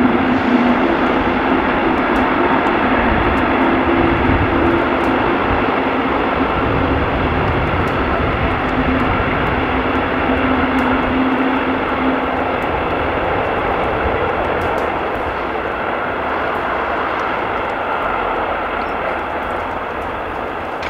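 Long freight train running past: a steady rumble of wheels on rail with a held tone that fades out a bit past halfway, the whole sound slowly dying away.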